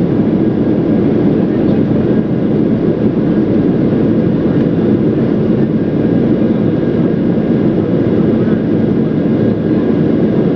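Steady, even rumble of an Oman Air airliner's jet engines and airflow, unchanging throughout, with a faint steady hum above it.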